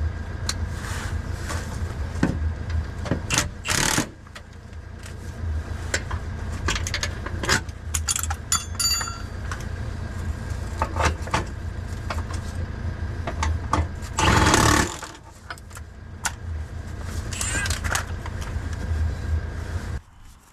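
Hand tools working on a car's underside: a wrench clicking and knocking, with metal parts clinking and briefly ringing. Two louder rasping bursts of about a second come roughly ten seconds apart, over a steady low rumble that cuts off near the end.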